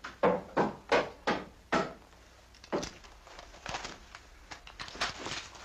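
Boot footsteps on wooden boards: five heavy, evenly spaced steps, about three a second, then a few softer scuffs and knocks.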